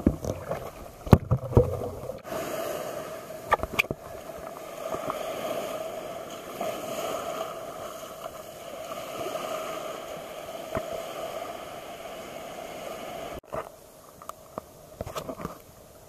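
Water sloshing with a few knocks close to a kayak for the first two seconds, then a steady wash of small waves running up a sandy beach, which cuts off suddenly into a quieter stretch with a few clicks near the end.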